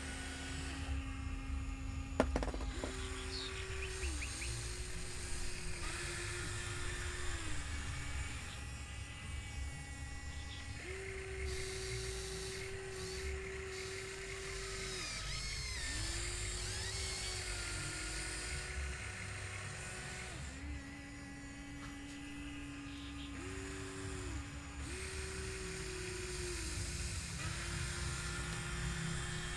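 Huina 1594 RC excavator's electric motors whining, the pitch stepping up and down between a few steady tones as different movements start and stop, over a low rumble. One sharp click about two seconds in.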